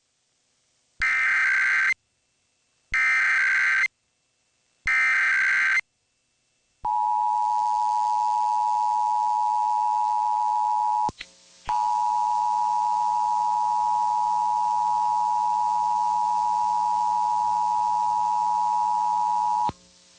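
Emergency Alert System header for a required monthly test: three one-second bursts of SAME digital data tones, each followed by a second of silence. Then comes the steady two-tone EAS attention signal, which drops out briefly about eleven seconds in and holds until just before the end.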